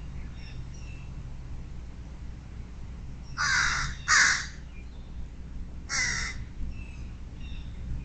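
American crow cawing three times, harsh and loud: two caws close together about three and a half seconds in, and a third about two seconds later. Faint songbird chirps sound behind them.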